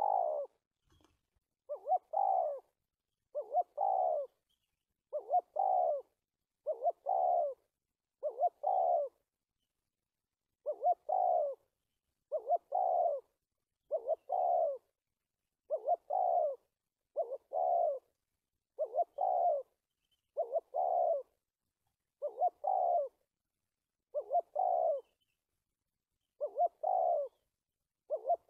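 Spotted dove cooing over and over in a stuttering call, a short double coo about every second and a half to two seconds, with one longer pause about nine seconds in.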